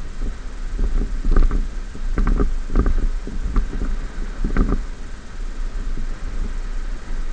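Ford F-150 pickup driving slowly over sand off-road: a steady low rumble, with a handful of short knocks and rattles as it rides over bumps between about one and five seconds in.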